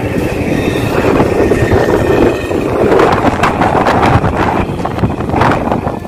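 Strong dust-storm wind blowing across a phone microphone, a loud rushing noise that swells and eases in gusts.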